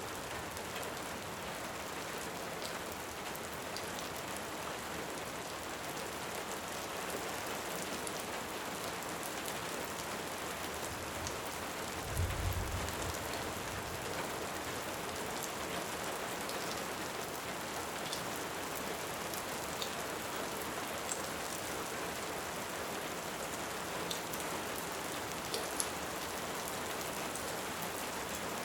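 Steady rain, with a short low rumble of distant thunder about twelve seconds in and scattered faint crackles from a fireplace.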